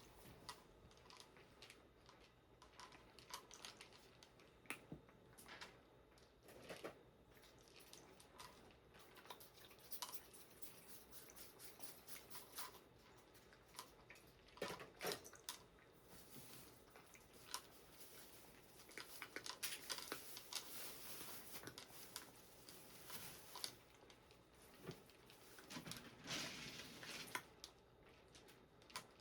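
Faint, scattered scrapes, clicks and rustles of cat litter being scooped and sifted in a litter box. Longer stretches of rustling come about two-thirds of the way through and again near the end.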